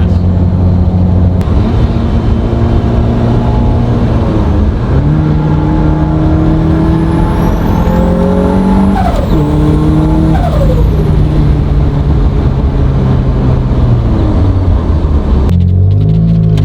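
Turbocharged 1.6-litre Mazda Miata four-cylinder engine running hard at high revs. Its pitch holds steady, steps up, then falls sharply a few times as the revs change.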